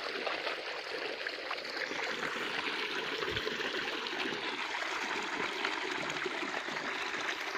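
Steady rush of water from a self-flowing borewell, gushing out of its pipe and splashing into standing floodwater.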